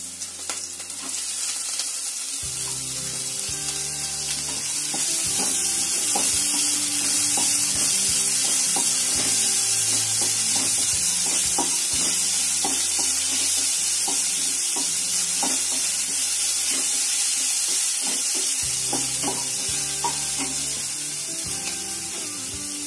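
Chopped onion sizzling and frying in hot oil in a non-stick kadai, stirred now and then with a wooden spatula that scrapes the pan. Background music plays softly underneath.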